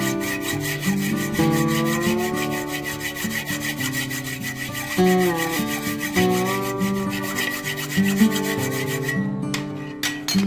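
Acoustic guitar music with a fast, even rasping workshop noise over it that stops about nine seconds in.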